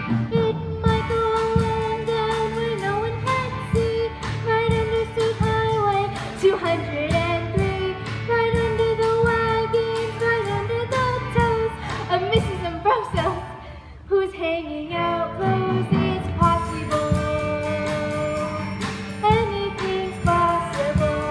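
Stage-musical accompaniment in an instrumental stretch of the song: a held, wavering melody over a steady beat, thinning out briefly about fourteen seconds in.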